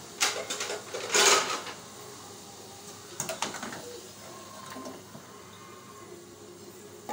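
Kitchen utensils and crockery clattering and scraping: a few light clicks, then a brief loud scrape about a second in, and more clicks about three seconds in.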